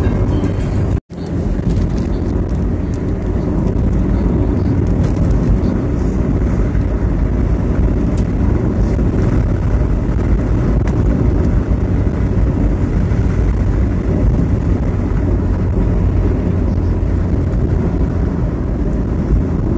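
Steady road, wind and engine noise of a vehicle driving along a paved road at speed. It cuts out for an instant about a second in.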